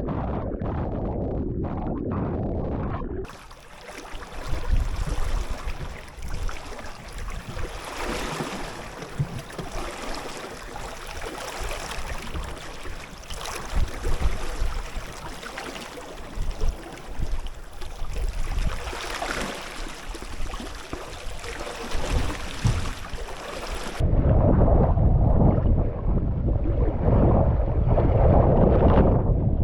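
Small sailboat under way at sea: water rushing and waves slapping against the hull, with wind, and scattered thumps. The sound changes abruptly about three seconds in and again near the end, becoming louder and more muffled.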